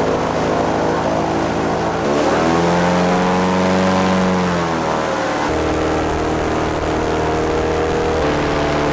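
Airboat engine and propeller running loud and steady under way, the pitch swelling up and dropping back between about two and five seconds in, with sudden changes of pitch a few times.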